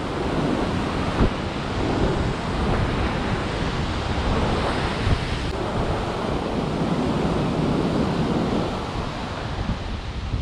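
Ocean surf breaking and churning against the foot of sea cliffs, a steady rushing wash, with wind buffeting the microphone.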